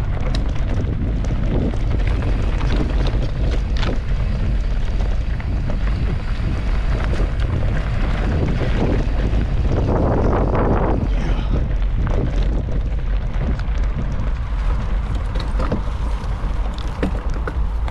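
Wind buffeting the microphone of a camera on a moving mountain bike, over the rumble of tyres rolling on a dirt trail, with scattered clicks and rattles from bumps. A louder rush of noise comes about ten seconds in.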